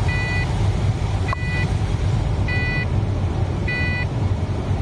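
Holden VY Commodore's seatbelt warning chime beeping evenly, four beeps about 1.2 seconds apart, over the steady low rumble of the engine idling.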